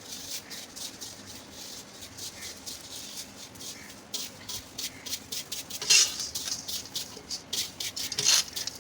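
Dry grains being stirred and scraped around a metal karahi, a dense rapid crackle and scratch. Louder scrapes come about six seconds in and again near the end.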